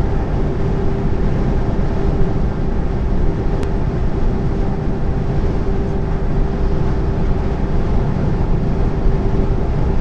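Steady drone of a lorry's diesel engine and tyres at motorway cruising speed, heard inside the cab: a constant low rumble with a steady hum over it.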